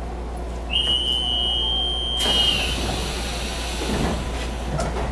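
Door-closing on a Taiwan Railway EMU700 commuter train: a steady high warning tone for about two seconds, then a burst of air hiss as the doors slide shut, followed by a couple of thuds, over the carriage's steady low hum.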